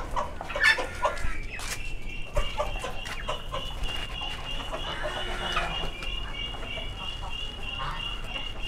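Hens clucking, with a few short knocks and scuffs in the first second and a half. A faint steady high tone runs through the rest.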